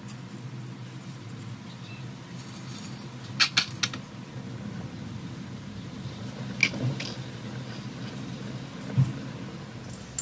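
Dry spaghetti and a stainless steel pasta server clicking and tapping against a ceramic plate: three quick sharp clicks about three and a half seconds in, another click past the middle, and a duller knock near the end. A steady low hum runs underneath.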